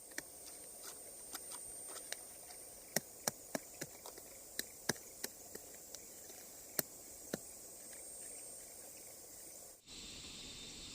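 A string of sharp, irregular clicks and snaps over a faint, steady high hiss. About ten seconds in, the background cuts out briefly and changes.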